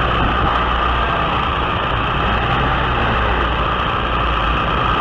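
Aircraft engine running steadily in flight with rushing wind, heard from on board: a constant low hum under a loud, even roar of air.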